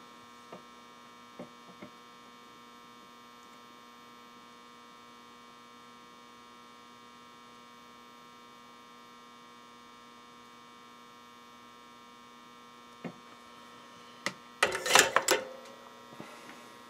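Steady electrical mains hum, with a few faint ticks from wires and tools being handled and a short burst of clattery handling noise about fifteen seconds in.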